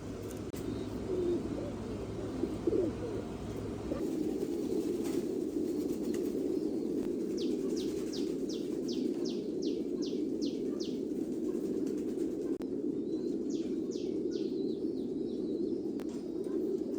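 Many domestic pigeons cooing together in a steady, continuous low murmur. Around the middle, a run of quick, high chirps about three a second comes in twice.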